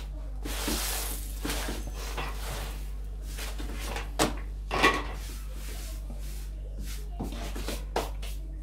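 Bazlama flatbread being turned over by hand on a hot electric pan, with two sharp slaps about four and five seconds in and lighter knocks of kitchen handling around them.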